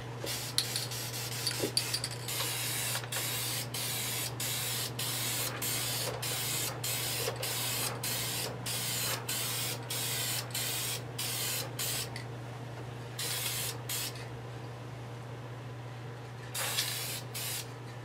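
Aerosol spray can of clear coat hissing in short spurts, about two a second, then a couple of longer sprays near the end, as a light coat of clear goes on. A steady low hum runs underneath.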